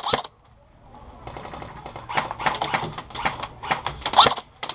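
Airsoft guns firing: a rapid run of sharp clicking shots starting about two seconds in, after a near-quiet first second.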